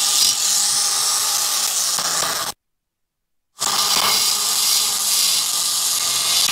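High-speed handheld rotary grinder running steadily, its bit cutting into the aluminium port of a two-stroke motorcycle cylinder with a hissing whine. The sound cuts out completely for about a second a little past two seconds in, then resumes.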